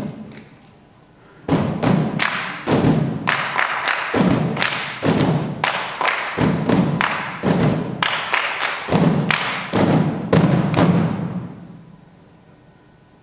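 Hollow percussive thumps and slaps, several a second in an uneven rhythm, echoing in a hall. The playing stops about eleven seconds in and rings away.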